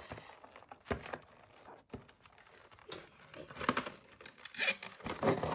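Cardboard and plastic box packaging being handled and pulled open: irregular rustling and crinkling with a few sharper tearing sounds, busier in the second half.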